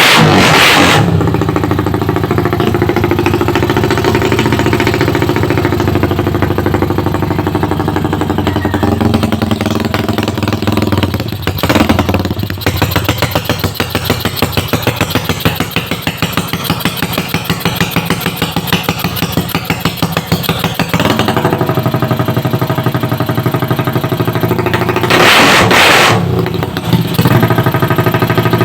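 Motorcycle engine with an aftermarket exhaust idling with a pulsing beat and blipped on the throttle three times, each rev brief before dropping back to idle.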